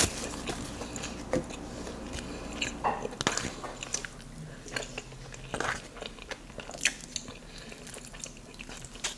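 Close-up crunching and chewing of crispy fried chicken, with irregular sharp crunches every second or so.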